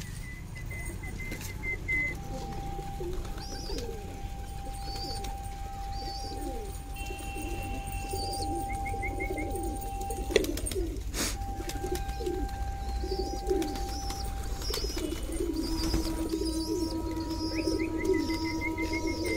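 A flock of fancy pigeons cooing all together, with repeated short high chirps from smaller birds above them and a few long steady high tones in the background. One sharp click comes about ten seconds in.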